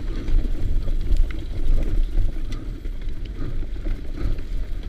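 Mountain bike descending over grass and dirt, heard through a helmet-mounted camera: a steady rumble of tyres and wind on the microphone, with a few sharp clicks and rattles from the bike.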